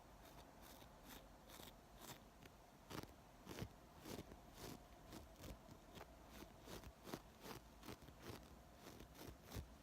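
Makeup tools handled close to the microphone, making a quiet run of small crisp clicks or snips, about two to three a second, that grow more distinct about three seconds in.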